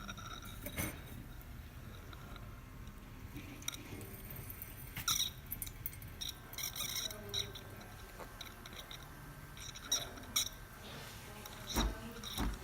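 Scattered light clicks and knocks of things being handled at an espresso machine, over a faint steady low hum.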